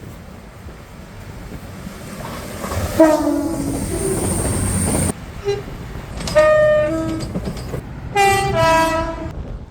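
Train horns: a train's rumble grows louder, then a two-tone horn sounds at about three seconds. After a sudden cut, two more two-tone horn calls follow, each a higher note then a lower one.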